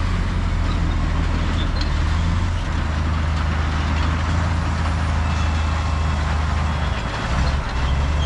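Heavy diesel engine of earthmoving machinery running steadily under load, with a deep, even drone that dips briefly near the end.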